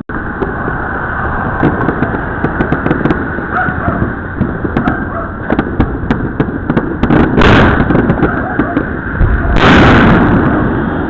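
Fireworks going off without a break: a dense crackle of rapid firecracker pops and bangs, with two louder, longer bursts, one about seven and a half seconds in and another near ten seconds.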